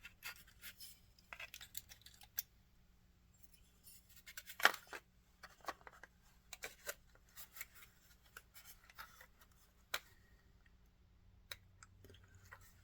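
Scattered light clicks, taps and scrapes of small HO-scale model train cars being handled, with the sharpest tap a little under five seconds in.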